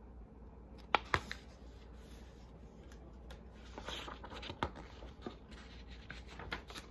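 Handling noises: two sharp clicks about a second in, then paper rustling and a few lighter clicks and knocks as a picture-book page is turned and the book is moved about.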